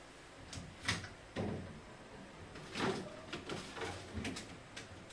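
Refrigerator fittings being handled: a series of about six short knocks and clunks, like a drawer or cupboard being opened and closed.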